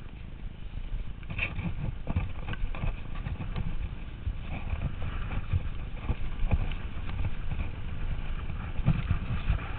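Mountain bike riding down a rough gravel track: tyres crunching over stones and the bike rattling over bumps in an uneven run of small knocks, over a steady low wind rumble on the helmet-camera microphone.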